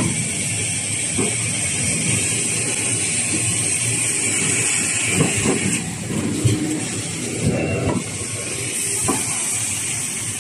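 Facial tissue production line machinery running: a steady high hiss with irregular mechanical knocks and clatter from the folding and packing mechanisms.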